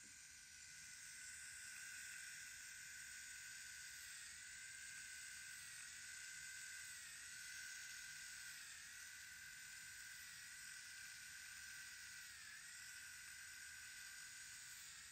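Motorized FUE extraction punch running with a faint, steady whine, its pitch dipping briefly several times.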